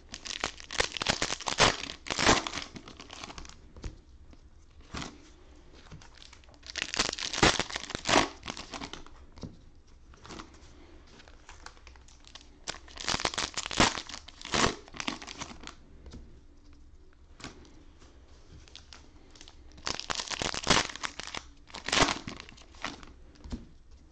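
Cellophane-wrapped trading card packs crinkling as they are handled and dropped onto a stack, in four bursts of crackling a few seconds apart.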